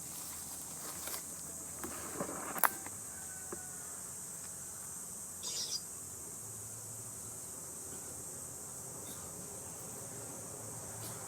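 Steady high-pitched drone of insects, with a sharp click a little over two seconds in and a brief chirp about halfway.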